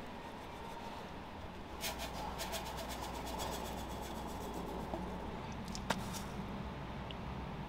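Seasoning being poured onto minced pork in a mixing bowl: a quick rattle of small ticks about two seconds in, over a low steady hum, with one sharp click near the end.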